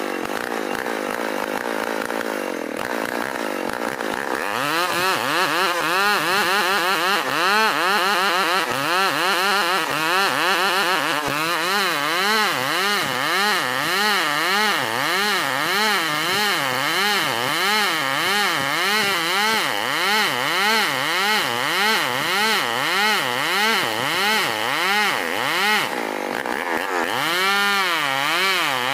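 STIHL 070 two-stroke chainsaw cutting lengthwise through a dense ulin (Borneo ironwood) log under load. The engine note is steadier for the first few seconds, then its pitch rises and falls about once a second.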